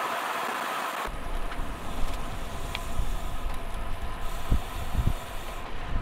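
Wind rushing over a helmet camera's microphone, with tyre noise from a road bike riding fast. About a second in, the sound changes abruptly to a lower, gusty wind buffeting with a few low thumps.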